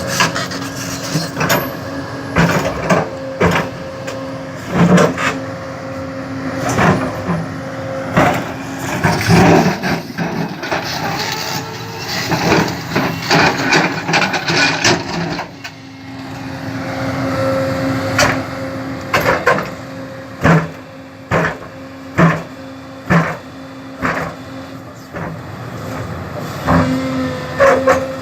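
Heavy construction machine working: its engine drones steadily under repeated irregular clanks and knocks, with denser scraping noise in the first half.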